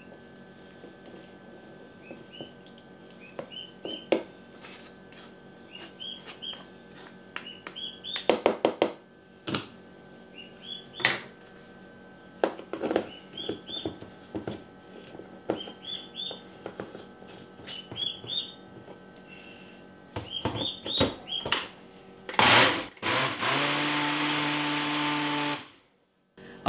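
Wooden spoon scraping thick salsa through a mesh strainer into a blender cup, with short squeaks and sharp taps on the strainer and jar. Near the end a Ninja blender gives a brief pulse, then runs steadily for about three seconds grinding the strained salsa, and cuts off suddenly.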